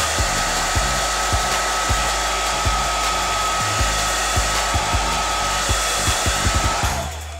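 Handheld hair dryer running steadily, an even rush of air with a steady high whine, drying wig adhesive spray on the lace until it turns tacky. It is switched off near the end.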